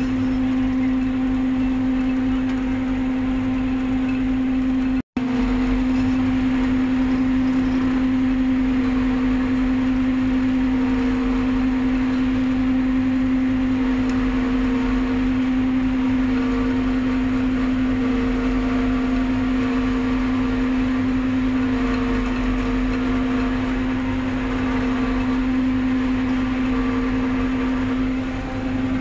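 Tractor engine running steadily under load while driving a tractor-mounted forage harvester that cuts standing maize for silage, with a constant hum from the machine. The sound cuts out for an instant about five seconds in.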